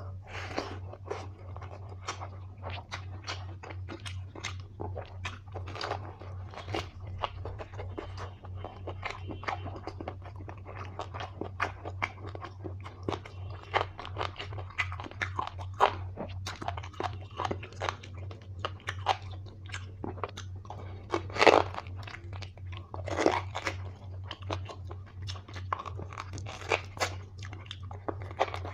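Close-up eating of mutton curry with rice: continuous chewing and biting, a rapid run of short crunches and mouth clicks, with a steady low hum underneath.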